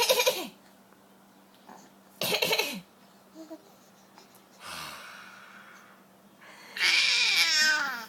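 Coughing and a baby's breathy laughter in several separate bursts, the loudest near the end, a high laugh falling in pitch.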